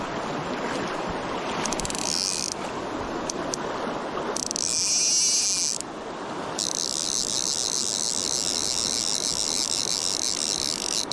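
River water rushing steadily. A high-pitched buzzing comes and goes in three stretches, the longest lasting about four seconds near the end.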